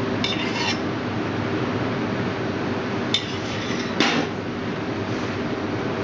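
Spoon and small stainless-steel saucepan clinking: a short metallic scrape near the start, then a clink and a sharper knock, the loudest sound, about three and four seconds in as the pan goes back among the pots. A steady hiss lies under it all.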